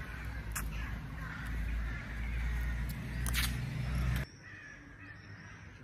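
Crows cawing, with wind buffeting the microphone and a couple of handling knocks; the wind noise stops abruptly about four seconds in, leaving the calls fainter.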